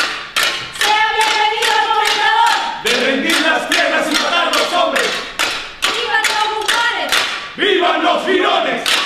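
A group of voices singing a chant together in phrases, over sharp, evenly spaced percussive strikes about two and a half a second: stage music in Afro-Caribbean style.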